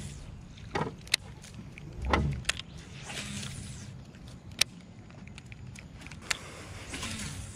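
Baitcasting rod and reel being cast and cranked while a topwater frog lure is retrieved, with a few sharp clicks and short rushes of noise.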